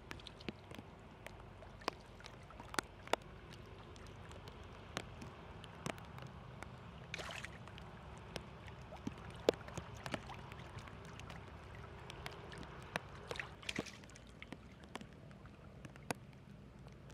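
Shallow muddy water flowing steadily down a channel past a mesh net, with many small sharp splashes. Two brief louder splashes come about seven and thirteen seconds in.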